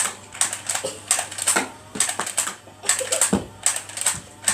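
A Nerf dart blaster being fired again and again: a run of sharp clacks, about two to three a second, as darts are shot at the cans without knocking them down.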